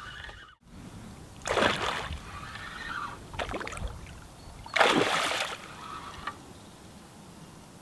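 A hooked pike thrashing at the surface as it is played in, making three splashes: one about a second and a half in, a shorter one around three and a half seconds, and the loudest near five seconds.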